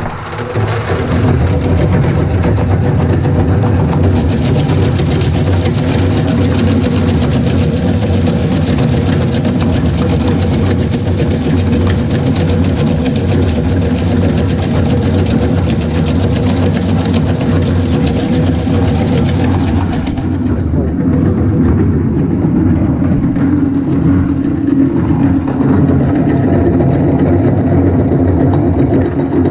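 Slow-speed plastics granulator with a 4 mm conical screen grinding shredded plastic: a steady geared-motor hum under a dense, continuous crackle of the rotor knives chopping. About twenty seconds in, the high crackle thins out while the hum goes on.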